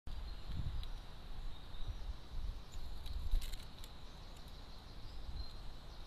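Great tit pecking at seed and mealworms in a plastic feeder tray: light irregular taps and clicks, busiest about halfway through, over a low uneven rumble.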